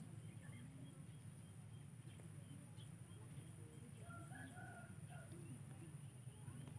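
Quiet outdoor ambience with faint, distant bird calls, the clearest about four seconds in, over a low steady rumble.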